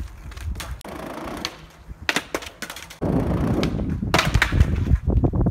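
Skateboard sounds: a few sharp board clacks, then wheels rolling loudly on concrete from about three seconds in. This is followed by a hard pop and loud impacts as the board comes down the stair set, and the board clatters near the end.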